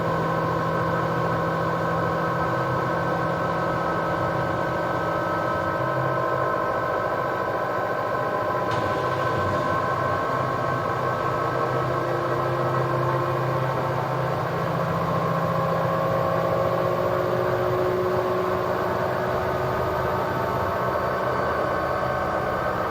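LG washing machine running its spin cycle: a steady hum with several steady tones, holding an even speed.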